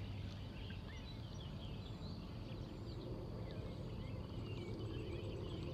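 Wild birds chirping and singing, many short overlapping calls, over a steady low outdoor rumble.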